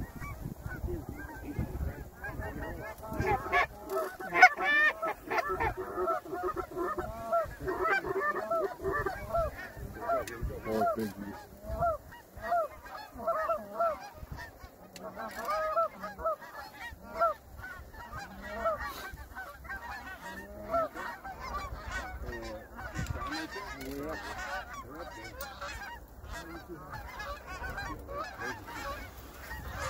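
A large number of geese honking, many calls overlapping in a constant chorus, busiest and loudest in the first half.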